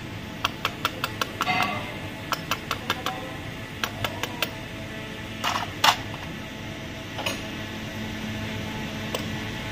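Sharp metallic clicks and taps of hand tools at work on a starter: a quick run of evenly spaced clicks in the first couple of seconds, scattered clicks after, and two louder knocks a little past halfway, over a steady low hum.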